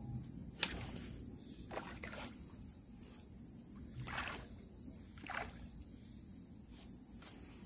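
A hooked fish splashing at the water's surface as it is played in: about six separate short splashes and sloshes spread across the seconds, with a steady high drone of crickets behind.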